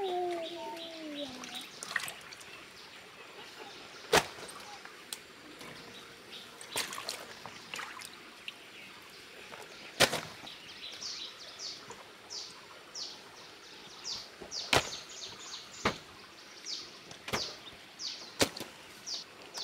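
Small birds chirping, short high calls repeated over and over in the second half, with a few sharp knocks spread through and a low falling call at the very start.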